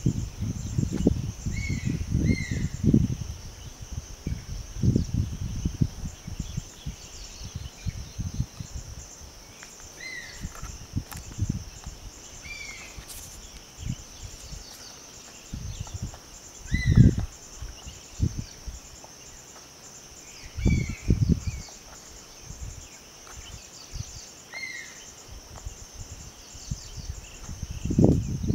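A steady high-pitched drone of insects, with a bird repeating a short falling call every few seconds. Irregular low rumbling thumps come and go, loudest twice in the second half.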